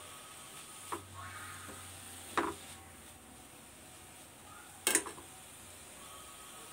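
Metal spatula knocking against a stainless steel pan while stirring grated carrot in ghee: three clinks, about a second in, about two and a half seconds in, and a louder one about five seconds in.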